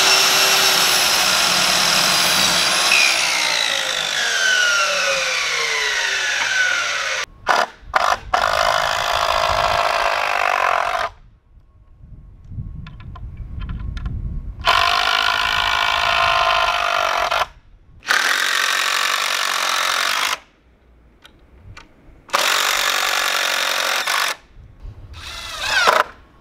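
Sliding miter saw cutting a pallet board, then winding down with a falling whine. After about seven seconds, a cordless drill drives screws into the pallet-wood frame in several runs of a few seconds each, with short pauses between.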